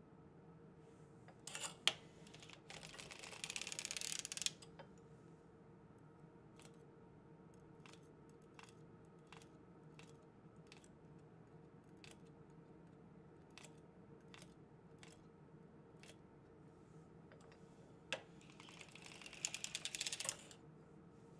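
Circular sock knitting machine needles being worked with a metal tool: two short runs of rapid metallic clicking and rattling, and between them single faint clicks roughly once a second as needles are moved one at a time.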